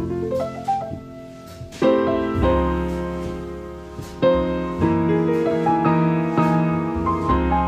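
Instrumental background music: a short rising run of notes, then sustained chords struck every half second to a second.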